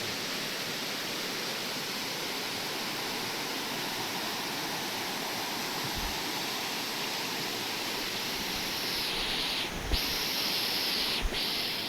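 Steady rushing of running water, an even hiss. From about nine seconds in a brighter, higher hiss joins, interrupted twice by faint knocks.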